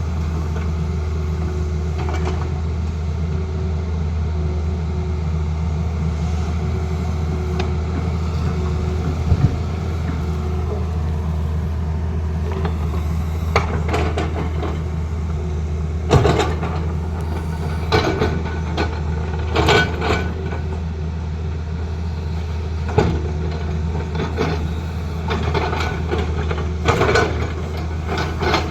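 Tata Hitachi excavator's diesel engine running steadily, with repeated short knocks and scrapes starting about halfway through as the machine works.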